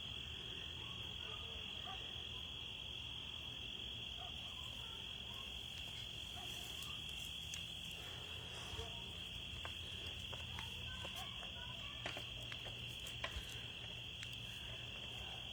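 Crickets chirping in a steady, high-pitched chorus, with a few faint ticks.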